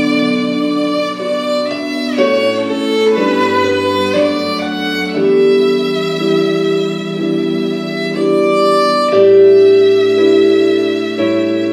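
Violin played with the bow, a slow melody of long held notes.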